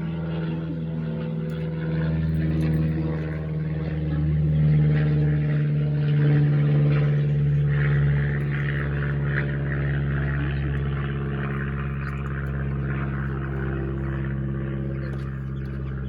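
An engine running steadily with a low hum, swelling a little in loudness midway and easing off again.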